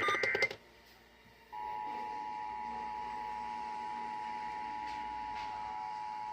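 Emergency Alert System test coming off the air on a radio. The warbling digital header data ends, and after a short pause, about a second and a half in, the steady two-tone attention signal (853 and 960 Hz) begins and holds.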